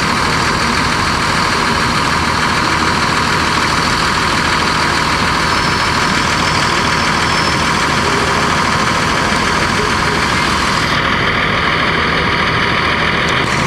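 Cummins ISC straight-six diesel of a 2002 Blue Bird CS transit bus running steadily, a loud even noise. The highest hiss drops away about eleven seconds in.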